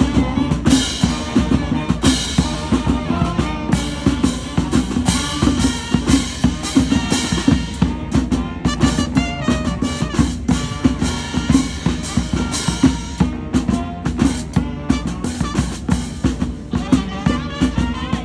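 Live street band music, led by drums with a steady beat, a bass line and melody instruments playing over it.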